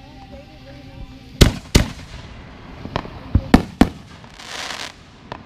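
Aerial fireworks bursting in the sky: two loud bangs about a second and a half in, then a quick run of four more bangs around three to four seconds in, followed by a short crackling hiss.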